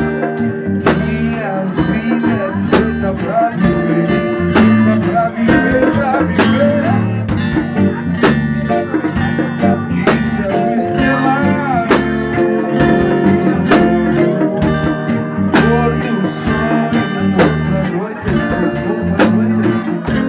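A band playing live: electric guitar, with some bent notes, over bass and a steady drum beat.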